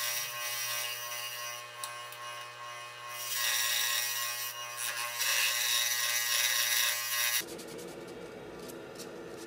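Scroll saw running and cutting a curved piece of wood, a steady buzz. About seven seconds in it stops abruptly, and quieter hand-sanding strokes with sandpaper follow.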